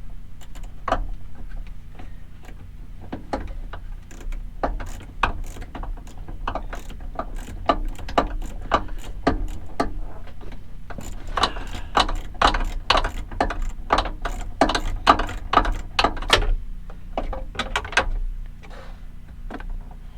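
Socket ratchet wrench clicking in short, irregular runs as a nut is worked loose in a cramped spot, with a denser run of clicks a little past halfway.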